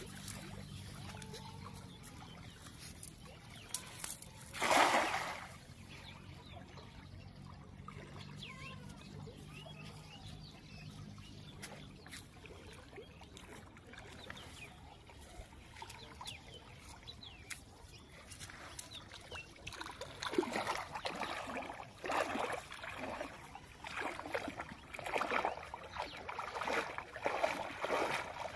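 Shallow floodwater splashing and sloshing in repeated irregular bursts through the last several seconds as a man wades in and gathers a cast net. Earlier there is one short loud burst about five seconds in, over a faint low hum.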